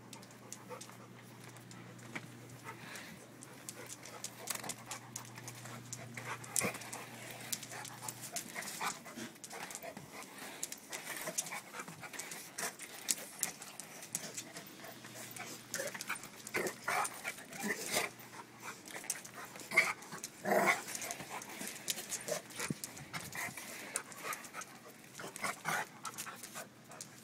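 A pit bull–mastiff mix dog panting hard as it scuffles and plays, with frequent sharp clicks and knocks on a concrete floor. A few louder short squeaky sounds come about two-thirds of the way through.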